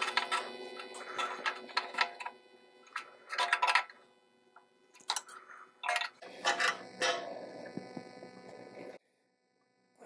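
Metal clinking and scraping as a mower muffler, its bracket and its bolts are fitted by hand on a small engine, in short clusters of clicks, over a steady electrical hum.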